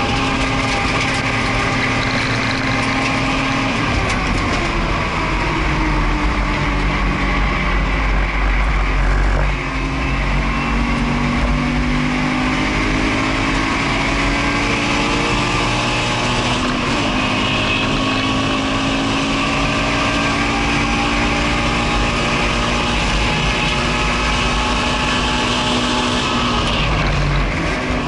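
Subaru BRZ's naturally aspirated 2.0-litre flat-four heard from inside the cabin under hard acceleration on track. Its note climbs steadily in pitch, broken by short dips at each upshift, about three times, and changes near the end as the car comes off the throttle. Wind and tyre noise run under it.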